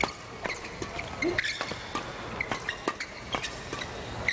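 Badminton doubles rally: a fast string of sharp racket hits on the shuttlecock, about two a second, with short high squeaks of players' shoes on the court mat between them.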